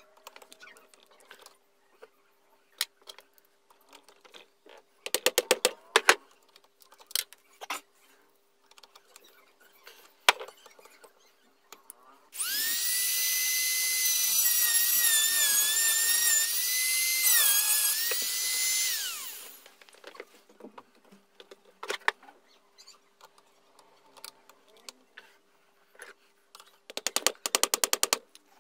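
Handheld mini rotary tool running at high speed against a screw head on an electric planer's housing, for about seven seconds from about twelve seconds in. Its whine dips in pitch as the bit bites, then winds down. Short bursts of rapid clicking come around five seconds in and near the end.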